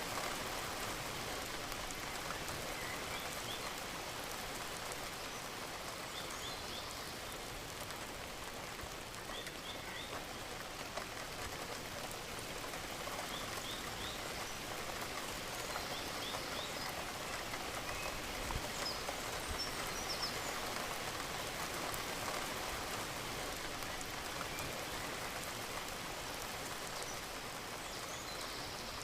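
Steady rainfall, an even hiss of drops falling on a surface. Short, faint high chirps sound now and then.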